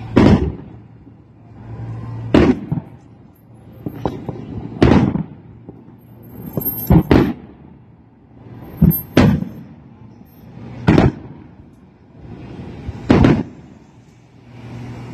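Aerial fireworks shells bursting overhead in a series of booms, about one every two seconds, with two quick double bursts near the middle. A faint steady low hum runs underneath.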